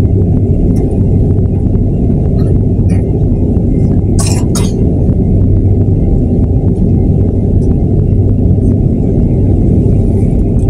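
Steady low rumble of an airliner's jet engines and cabin noise heard from a window seat while the plane taxis, with a constant low hum. About four seconds in there are two short, sharp clinks.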